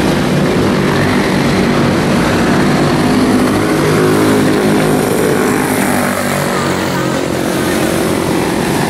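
Two quarter midget race cars' small single-cylinder four-stroke engines running as they race around the oval, their pitch rising and falling as they go through the turns.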